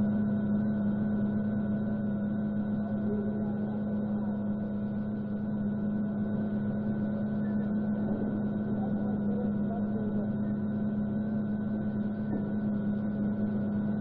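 A steady low mechanical hum with a few constant tones above it, holding unchanged throughout.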